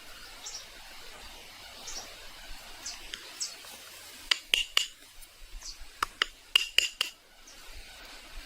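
A run of sharp clicks with a brief ring, three close together about halfway through, then about five more a second and a half later, over a faint hiss with small high chirps.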